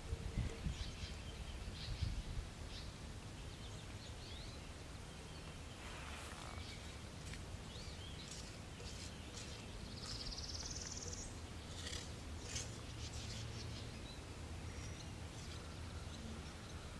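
Outdoor ambience of scattered bird chirps and calls, one of them a rising buzzy trill about ten seconds in, over a low steady rumble. A couple of soft low knocks sound in the first two seconds.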